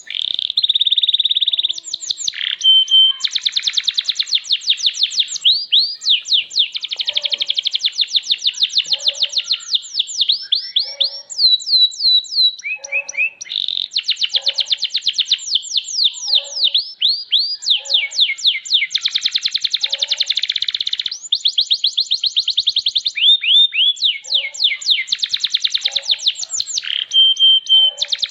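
Domestic canary singing a long, unbroken song of fast trills and rolls, switching from one trilled phrase to the next every few seconds.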